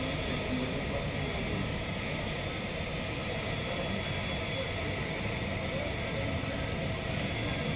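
Steady jet-turbine rush with a faint, constant high whine.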